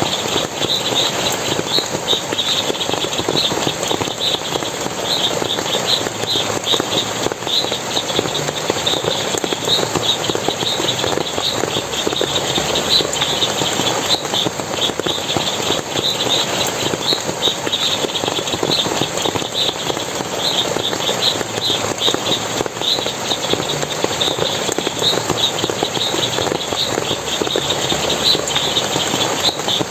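Forest stream splashing steadily, with short high chirps repeating rapidly over it throughout.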